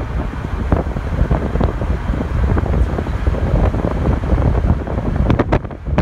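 Wind buffeting the microphone while driving: a loud, steady low rumble, with a few sharp clicks near the end.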